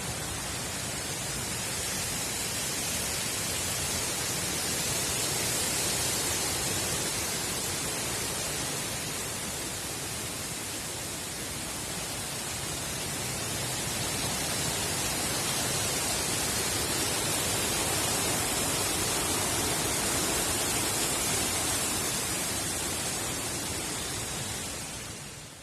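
Wind blowing through trees, a steady rush of leaves that swells and eases in slow gusts and fades out near the end.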